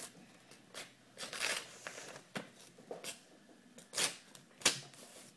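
A sheet of printer paper being torn in half along a folded crease and handled: a longer tearing rustle, then several short sharp paper rustles and crinkles.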